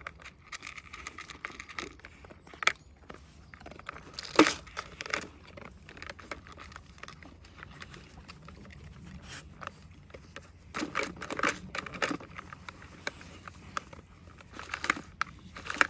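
Puppies nosing and pawing a plastic treat-dispensing puzzle toy: irregular plastic clicks, knocks and rattles, the loudest about four seconds in, with further clusters near the end, mixed with crunching.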